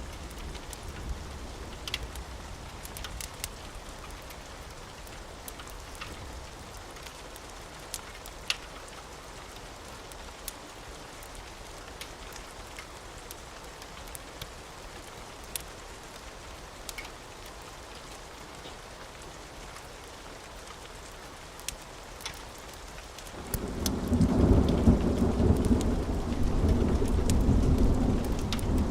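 Steady rain with scattered sharp crackles from a wood fire. Toward the end a loud, low rolling rumble of thunder begins and keeps going.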